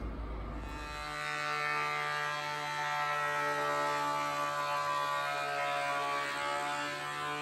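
Thickness planer running and planing a hardwood board, a steady buzzing whine that sets in about a second in.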